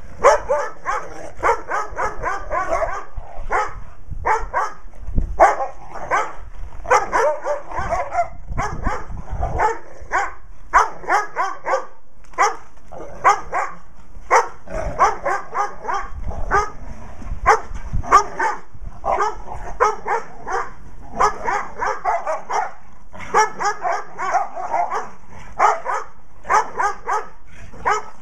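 Dogs barking excitedly and almost without pause while they play, in quick runs of barks separated by brief gaps.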